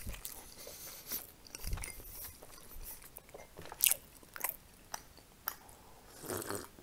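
Close-up chewing of a rolled pancake (blin): scattered short mouth clicks. A sip from a glass mug comes near the end.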